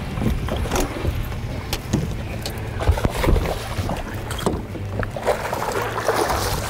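Fishing boat on the water: a low steady rumble with many short clicks and knocks scattered through it, and a burst of hiss-like noise about five seconds in.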